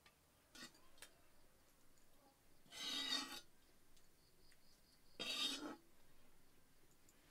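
Metal ladle scraping the inside of a steel kadai twice, each scrape about half a second long, as thick fish masala is scooped out of the pan. A couple of faint clicks come in the first second.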